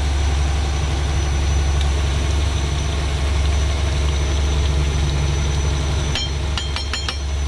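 The fishing boat's inboard diesel engine running steadily, a constant low hum. A few short, ringing metallic clicks come about six seconds in.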